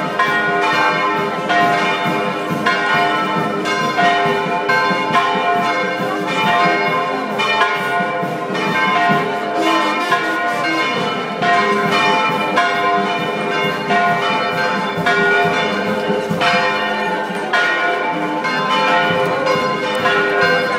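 Church bells ringing in a continuous peal, strike after strike, their tones overlapping and ringing on together.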